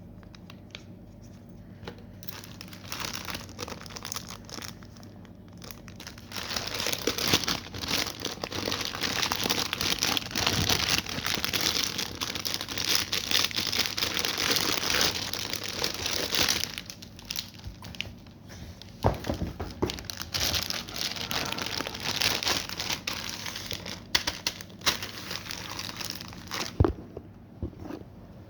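Packaging being crumpled and torn open by hand: rustling and crinkling, heaviest and most continuous for about ten seconds in the middle, then in scattered bursts with a few sharp clicks.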